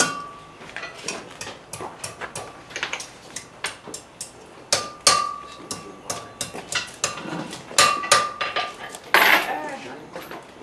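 Blacksmith's hand hammer striking hot iron on an anvil in a quick, uneven run of blows, several a second, the anvil ringing after many of them. A louder metallic clatter comes near the end as the hammering stops.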